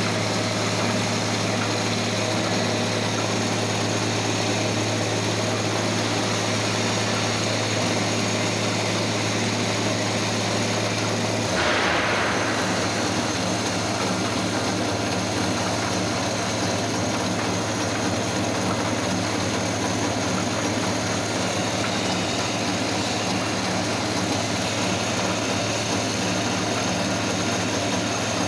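CNC milling machine running steadily while cutting a part, a constant machine hum. About twelve seconds in there is a short rushing hiss and the hum changes slightly.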